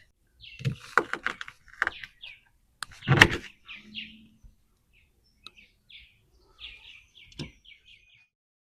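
A knife cutting the tip off an ear of sweet corn: several crunching knocks in the first three or so seconds, the loudest about three seconds in. Small birds chirp in short bursts near the end.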